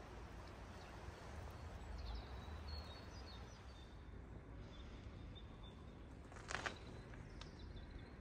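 Quiet outdoor ambience: a faint steady hiss with a few faint high bird chirps, and one short sharp sound about six and a half seconds in.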